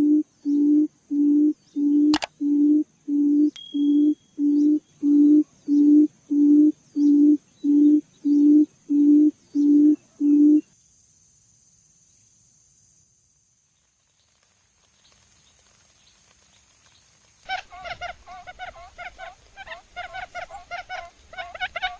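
A bird giving a low, even hooting call about twice a second, which stops about ten seconds in. After a quiet pause, a rapid run of higher chirping calls starts near the end.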